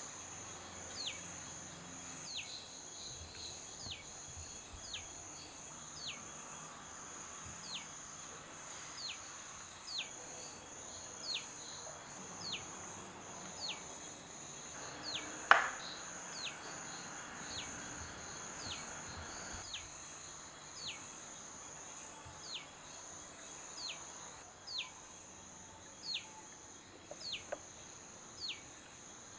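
Crickets trilling steadily and high, with a short falling chirp repeating about once a second throughout. A single sharp click comes about halfway through.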